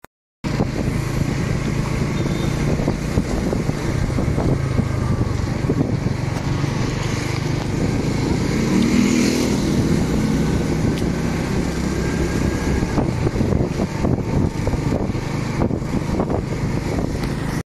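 Motorcycle engine running steadily at road speed, with road and wind noise from riding.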